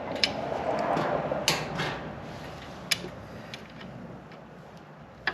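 Hand tools being worked on the motorcycle: a few sharp metallic clicks and clanks over rustling handling noise, as a socket and ratchet are used on the heel shifter's fasteners.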